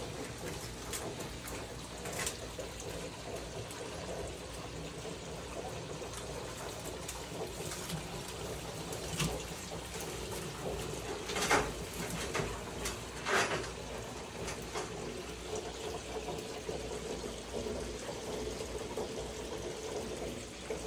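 A steady rushing noise, like running water, with a handful of short sharp scratches and clicks scattered through it, the loudest a little past the middle. The clicks fit a large green iguana's claws gripping and scraping bark as it climbs a branch.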